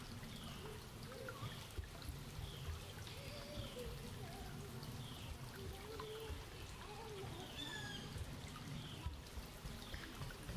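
Shallow creek trickling over rocks, with a bird calling short falling notes about once a second.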